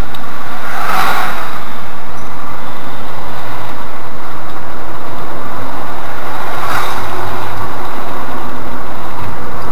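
Steady road and engine noise inside the cabin of a Škoda Rapid 1.6 MPI driving down a hairpin mountain road, picked up by a dashboard camera's microphone. There is a brief swell about a second in as an oncoming SUV passes, and another about seven seconds in.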